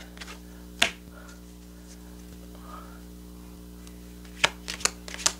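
Tarot cards being handled and shuffled: a single sharp click about a second in, then a quick run of card snaps near the end, over a steady low electrical hum.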